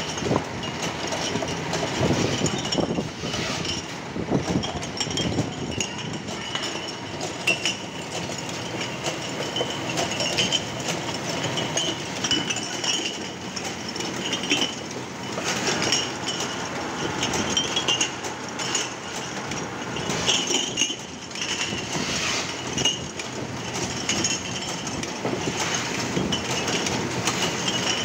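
Fully automatic vertical gum labelling machine running steadily, its conveyor and belts giving a continuous mechanical clatter with many small clinks of bottles knocking together as they pass along the line.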